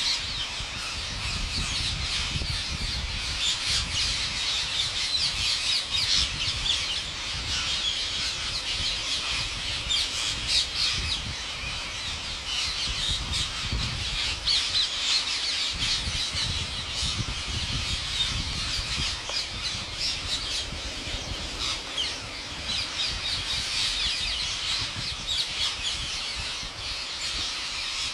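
A large flock of rose-ringed parakeets screeching continuously, many sharp calls overlapping into a dense unbroken din, with a low rumble underneath.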